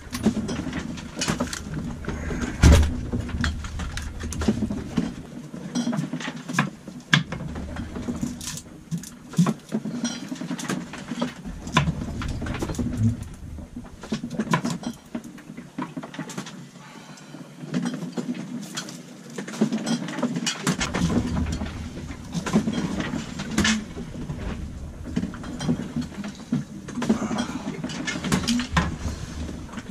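A knife chopping vegetables on a wooden cutting board: many irregular sharp knocks and clicks, mixed with dishes and utensils clattering.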